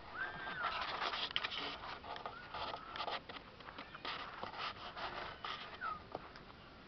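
Dense rustling and clicking close to the microphone, with a few short whistle-like chirps that rise and fall, dying away over the last couple of seconds.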